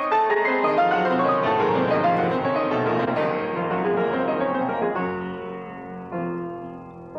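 Solo grand piano: quick, dense runs of notes for about five seconds, then slower, softer held chords that fade away.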